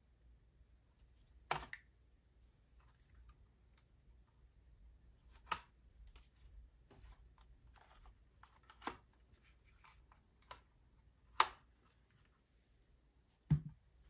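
Hands handling small items from an unboxing: about six sharp clicks and taps spread out over several seconds, with light rustling between them and a dull thump near the end.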